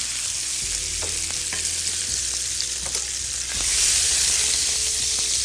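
Spiced chicken pieces sizzling in hot oil in a frying pan as they are lifted out with tongs, with a few light clicks of the tongs against the pan. The sizzle gets louder for about a second partway through.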